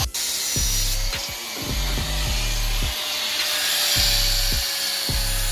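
Angle grinder running and grinding into the metal of a spoked motorcycle wheel, a steady harsh grind that swells about four seconds in. Background music with a steady beat plays underneath.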